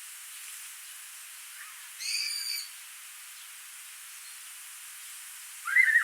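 A small stream flowing steadily, with birds calling over it: a short buzzy call about two seconds in, and a louder, wavering whistled call near the end.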